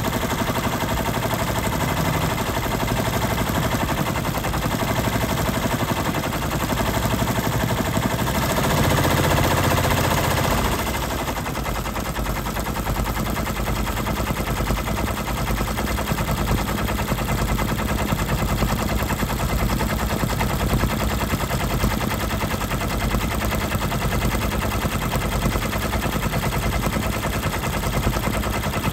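Brother multi-needle embroidery machine stitching at speed: a fast, even needle clatter. Partway through there is a brief louder stretch with a low hum.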